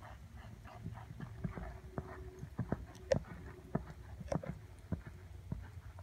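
Hoofbeats of a ridden horse loping on arena sand: a run of uneven thuds and knocks, loudest a little past halfway.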